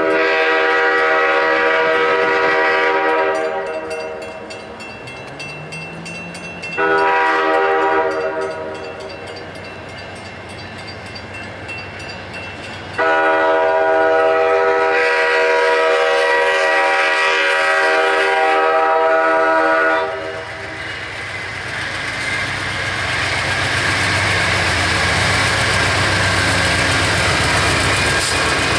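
Amtrak GE P42DC diesel locomotive's multi-chime air horn sounding a long blast, a short blast and a long blast, the end of the long-long-short-long grade-crossing signal. After the last blast the locomotive's engine and wheels rumble louder as it approaches and passes.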